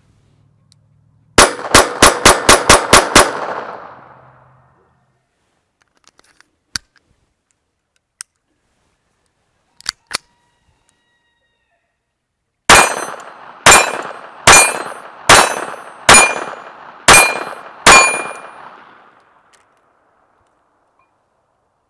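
Beretta Bobcat 21A .22 LR pistol firing: a quick string of about eight shots in under two seconds, a few faint handling clicks, then seven slower shots just under a second apart, the hits ringing on steel targets.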